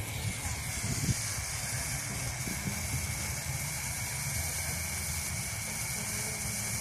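Luces (lusis) firework stick burning with a steady high hiss, which starts about half a second in.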